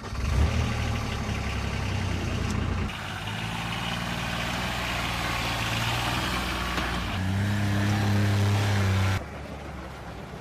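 Polaris MRZR off-road vehicle's engine running and driving. The pitch and level jump abruptly about three seconds in and again about seven seconds in, as between separate shots. The engine is loudest just before the nine-second mark, then drops away to a quieter rumble.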